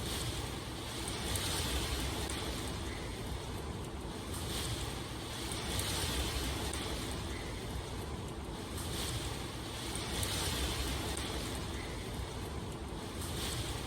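Steady heavy rain, a dense hiss that swells and eases every couple of seconds.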